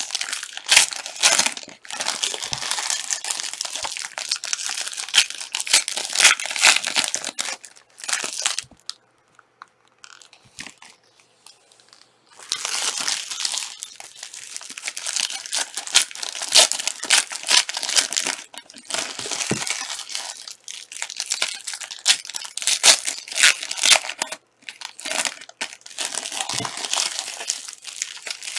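Plastic-foil trading card pack wrappers crinkling and tearing as packs are ripped open and crumpled. The crackling comes in bursts, with a pause of a few seconds about a third of the way in.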